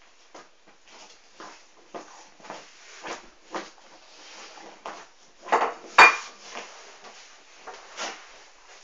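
A dog rooting and pawing at its cushioned bed: irregular scratching and rustling strokes, with a sharp clink about six seconds in.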